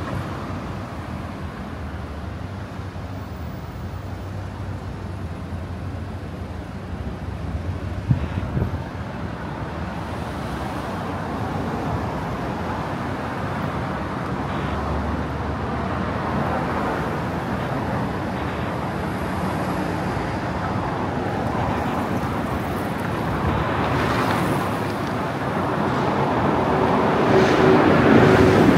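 City road traffic: a steady wash of passing cars, with a single sharp knock about eight seconds in. Near the end it grows louder with a low steady engine tone as a heavier vehicle passes close by.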